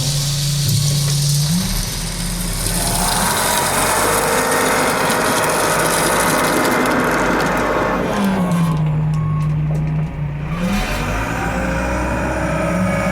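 The heavy diesel engine of a John Deere 344G wheel loader running hard while loading a dump truck. Its pitch drops and then climbs back twice, once at the very start and again about eight seconds in.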